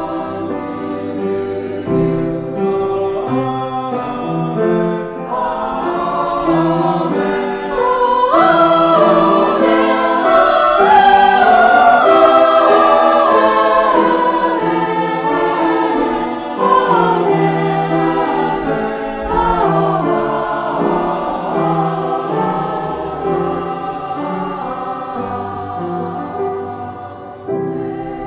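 Choir singing a hymn with accompaniment, swelling louder about a third of the way in and easing off toward the end.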